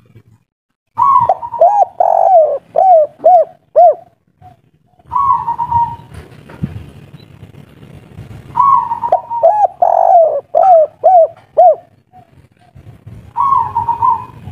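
Spotted dove cooing in repeated phrases of the kuk-3 song type. Each phrase is a rough opening coo followed by a quick run of short, arched notes, about four phrases in all.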